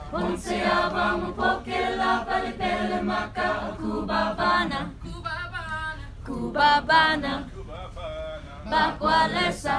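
A group of young voices singing a cappella in parts, a choir holding long sung notes, with a short break a little past halfway. A steady low hum runs underneath.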